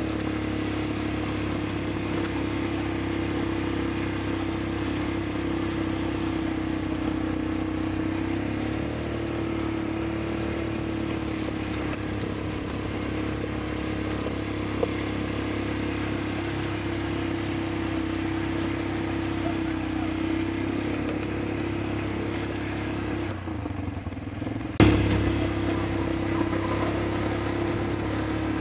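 ATV engines running at a steady speed, with gravel and road noise from riding along a rough track. Near the end the drone dips briefly, then a sudden loud knock is heard and the engine noise carries on.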